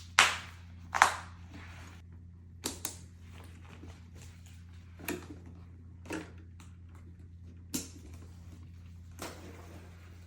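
Sharp plastic clicks and knocks, about eight in all and spaced irregularly, two loud ones in the first second, from adjusting and fitting the backpack straps and back panel of a portable car fridge. A steady low hum runs underneath.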